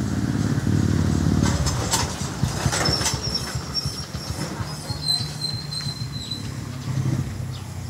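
A motor vehicle's engine running, louder in the first two seconds and again near the end. Two brief high whistling tones come about three and five seconds in.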